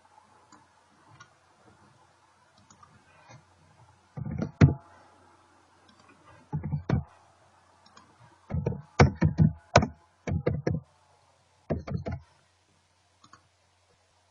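Computer keyboard keystrokes and mouse clicks in four short clusters, the longest run about halfway through, over a faint steady hum.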